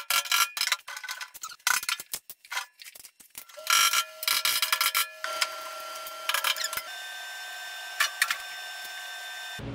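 Metal hand tools clicking and tapping on the snow blower's auger shaft and bearing housing, followed by a steady high-pitched squeal that shifts pitch in steps and holds for several seconds.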